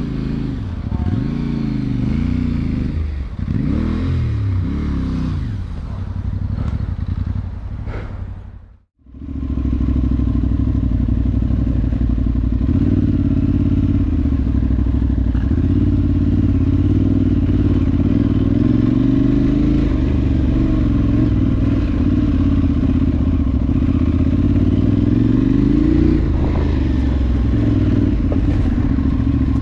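Parallel-twin adventure motorcycle engine riding off road, revving up and down through the throttle for several seconds, then running at a steadier, louder pace. There is a brief dropout to near silence about nine seconds in.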